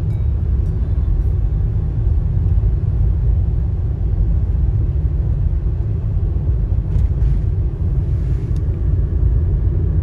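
Steady low rumble of road and engine noise inside a moving car.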